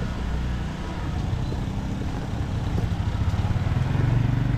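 Heavy rain hissing, with a motorcycle engine running close by, its hum growing louder about three seconds in.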